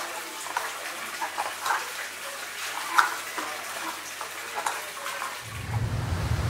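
Irregular light knocks and clicks as rubber tennis-ball cores are set into the cavities of a cast-metal mould tray, with one sharper knock about three seconds in. Near the end a low steady rumble comes in.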